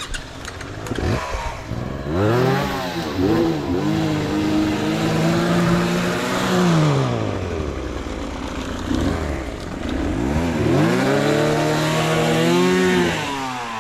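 KTM EXC 300 TPI single-cylinder two-stroke dirt bike engine revving up under throttle, held high, then falling back, twice: a first long pull from about 2 s to 7 s and a second from about 10.5 s until shortly before the end.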